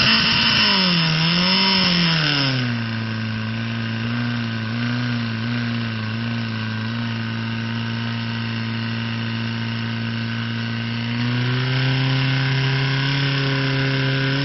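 Portable fire pump's engine running under load while it feeds the hose lines. Its pitch rises and falls in the first couple of seconds, then it settles to a steady run, and it picks up speed again about eleven seconds in as the water jets come on.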